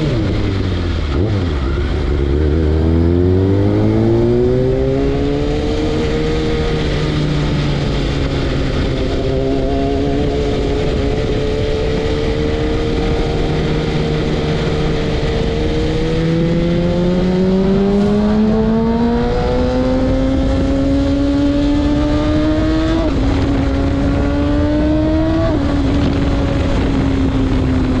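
Kawasaki ZX-6R 636's inline-four engine through a Carbox racing exhaust, heard from the rider's seat. The revs fall at first, then climb as the bike accelerates and hold at a steady cruise, then rise again. Near the end the pitch drops sharply twice at the gear changes before settling.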